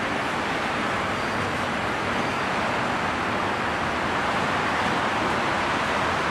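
Steady, even rushing noise on a metro platform with an Alstom AS-2002 train standing at it.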